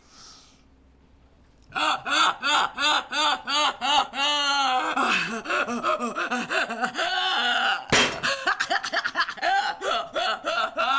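A woman's loud, deliberately put-on laughter, starting about two seconds in as a rapid run of high-pitched ha-ha bursts with gasping glides, meant to be contagious. A single sharp knock cuts through it about eight seconds in.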